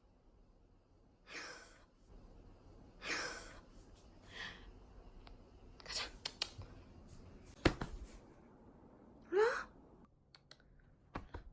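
A small dog at play with its toy: several short breathy puffs, one sharp knock about eight seconds in, and a short rising squeal near the end.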